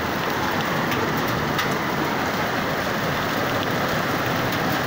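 Heavy rain mixed with hail falling steadily on the ground and nearby surfaces: an even hiss with scattered sharp ticks.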